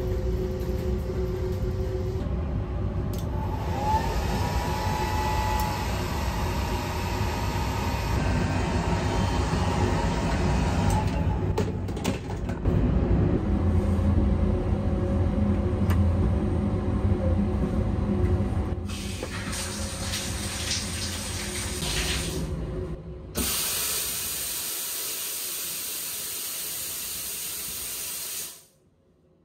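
Water running and spraying in a sleeper train's compact shower room, over the low rumble of the moving train. Near the end the rumble drops away, leaving a steady, even hiss of spraying water that cuts off suddenly.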